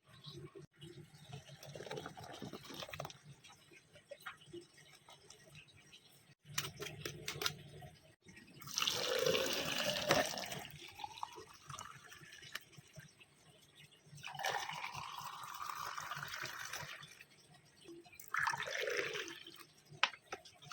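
Pomegranate juice being poured, in three separate pours of a few seconds each, with light handling sounds between them.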